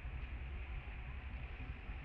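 Steady outdoor background noise: a low, fluctuating rumble with a faint hiss above it, and no distinct calls or knocks.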